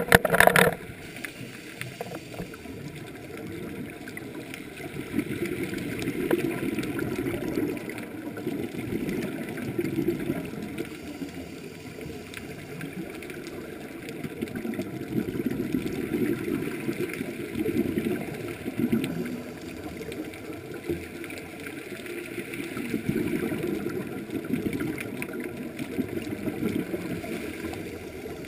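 Muffled underwater noise from a scuba diver's regulator, with exhaled bubbles swelling and fading every few seconds. A brief loud burst comes right at the start.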